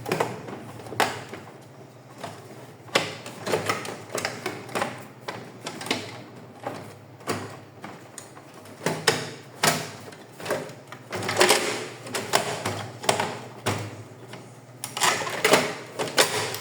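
Parts of an HP LaserJet M1132 printer being handled and fitted into place during reassembly: a string of irregular clicks and knocks, busiest near the end.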